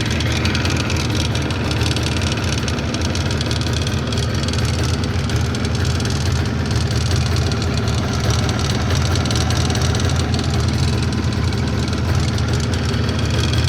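Jawa 638 motorcycle's two-stroke twin-cylinder engine idling steadily with a knock in it, whose cause the owner is asking about.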